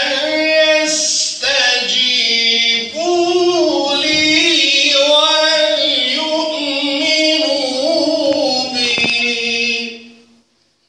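A man reciting the Qur'an in melodic style into a handheld microphone: long held notes that waver and turn in pitch, with short breath breaks between phrases. The voice stops about ten seconds in.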